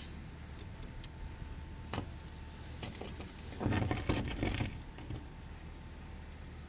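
Handling noise from a handheld phone camera: a few small clicks, then a short burst of rustling and knocking about three and a half seconds in, over a steady low hum.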